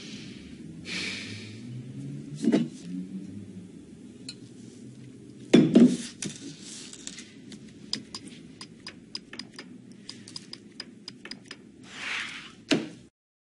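Touchscreen phone keypad clicking as a message is typed: a quick, irregular run of light taps over a low steady hum. Before the taps there are a few dull knocks.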